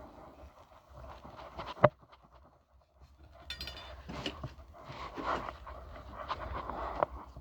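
Handling noises from pipework: scattered light clicks and knocks over rustling, with one sharp click about two seconds in the loudest.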